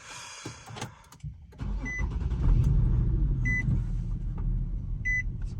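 Nissan G37's VQ37VHR V6 starting about a second and a half in and settling into an idle, with a short dashboard chime beeping about every second and a half. The idle still carries a slight misfire on cylinder 4, caused by a bad ignition coil pack.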